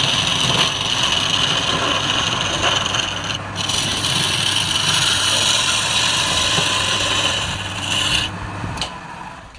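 Woodturning lathe with a tool worked against the spinning wood, a steady scraping hiss over the lathe's hum. It breaks off briefly about three and a half seconds in and stops about eight seconds in.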